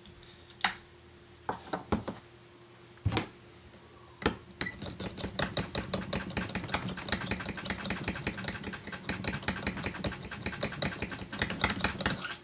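Paint being mixed in a small hobby-paint bottle: a few separate clicks at first, then about four seconds in, rapid steady clinking and rattling over a low hum for about eight seconds, stopping just before the end.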